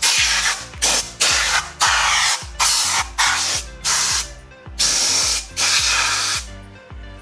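Compressed-air blow gun giving about nine short blasts in quick succession, blowing out a port in the engine bay to clean it.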